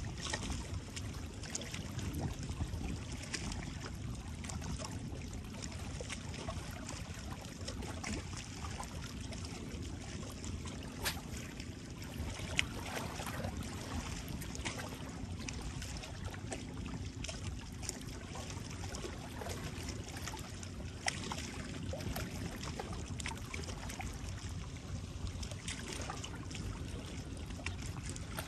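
Seawater lapping and trickling over a steady low rumble, with scattered small sharp clicks.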